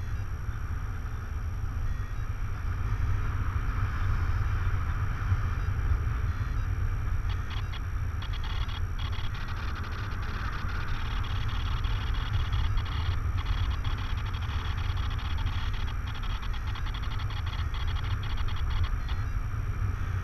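Wind rushing over the microphone of a camera mounted on a paraglider in flight, a steady low rumble. A faint high-pitched tone comes and goes from about eight seconds in.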